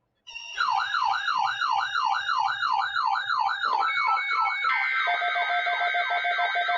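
Electronic siren-like warble starting about a quarter second in, rising and falling fast, about three times a second. About two thirds of the way in, synthesizer music with steady tones and rapidly repeated notes joins it.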